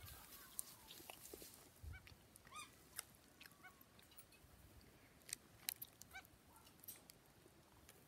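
Faint, short calls of farm poultry, a few seconds apart, with occasional soft clicks.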